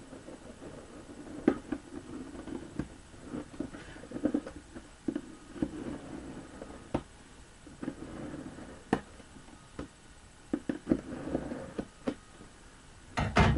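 Knife stabbing and slicing into a cardboard shipping box: irregular scratchy rustles of the blade and cardboard, broken by a dozen or so sharp taps and clicks, with a louder clatter near the end.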